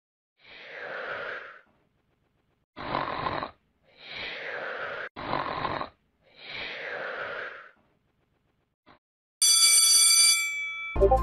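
Five breathy, snore-like sounds, each about a second long, with short gaps between them. Near the end comes a brief electronic ringing tone, like an alarm clock, which cuts off after about a second.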